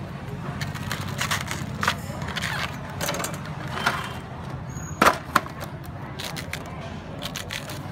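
A fresh bamboo shoot's husk sheaths being peeled and torn off by hand, in short crackles and snaps, with the sharpest, loudest snaps about five seconds in. A steady low hum runs underneath.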